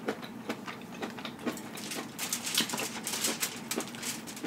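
Close-miked chewing of crunchy kimchi: irregular wet crunches and mouth clicks, several a second.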